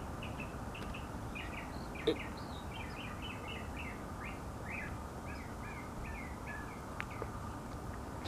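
Small birds chirping: a steady run of short, high chirps, several a second. A brief sharp knock sounds about two seconds in.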